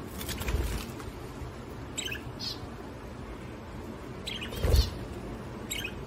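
Budgerigars chirping in short, scattered calls. Two low thumps come through, the louder one about three-quarters of the way in.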